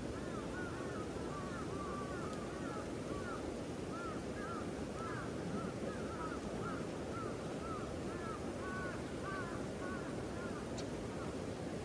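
Birds calling over and over, short arching notes at about two or three a second, over a steady low outdoor rush.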